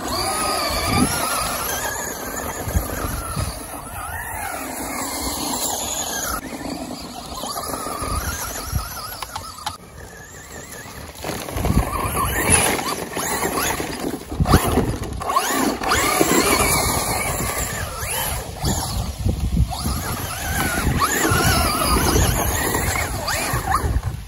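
Traxxas Slash VXL RC truck's brushless electric motor whining, its pitch gliding up and down again and again as it revs and eases off, over rough low rumbling noise.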